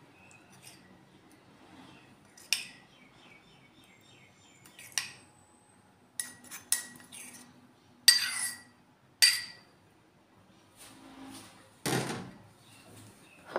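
Metal spoon clinking and scraping against a ceramic bowl and plate while thick peanut sauce is spooned out: scattered sharp clinks a second or more apart, the loudest about eight and nine seconds in.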